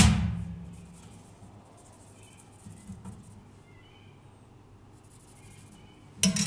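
A metal square set down on a steel-topped bench with a sudden clunk that rings briefly. Faint marker scratching on galvanised sheet metal follows, and about six seconds in a louder clatter of the sheet metal being handled on the bench begins.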